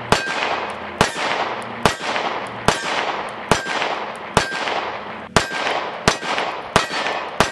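Springfield Armory Hellcat RDP 9mm micro-compact pistol with a muzzle compensator fired in slow, steady fire: about ten single shots, roughly one a second, each with an echo that fades before the next.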